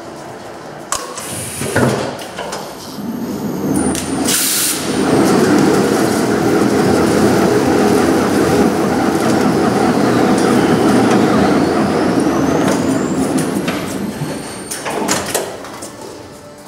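Horizontal orbital stretch wrapper running a tyre wrap cycle: a few knocks, a short loud hiss about four seconds in, then the film ring rotating steadily for about nine seconds with a faint high whine gliding in pitch, winding down with a few clicks near the end.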